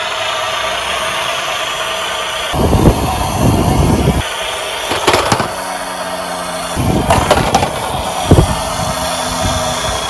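Toy garbage truck's built-in electronic engine sound playing steadily from its small speaker. Its plastic wheels rumble over a wooden board twice, with a few sharp knocks as the truck drops over the board's edge.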